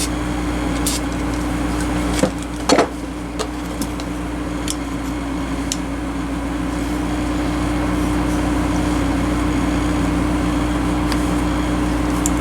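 Steady mechanical hum of a running fan or motor, with scattered light metal clicks and a sharper clack about three seconds in as the slip-joint pliers are worked by hand.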